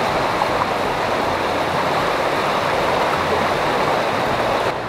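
Shallow creek water rushing steadily over a small rocky cascade, a little quieter near the end.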